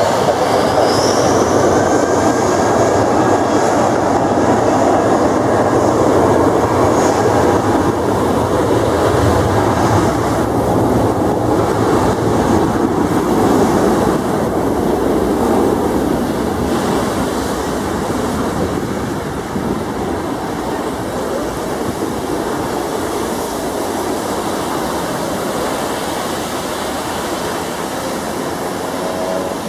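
Super Air Jet Airbus A320's jet engines spooling up to takeoff thrust: a loud, steady roar with a high whine rising in the first couple of seconds. The roar eases slightly in the second half as the aircraft rolls away down the wet runway.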